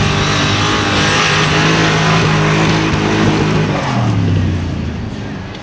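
Mercedes-Benz G63 AMG 6x6's twin-turbo V8 pulling hard as the truck churns through soft sand, with a hiss of spraying sand over the engine note. About four seconds in, the engine note drops and fades as it eases off and moves away.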